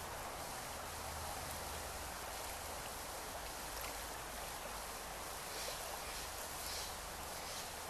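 Shallow forest stream flowing over rocks: a steady, even rush of running water.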